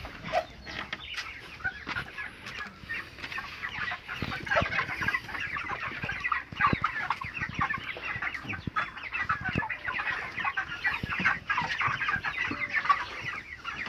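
A flock of young white broiler chickens peeping and clucking continuously, many calls overlapping, with scattered knocks and rustles among them.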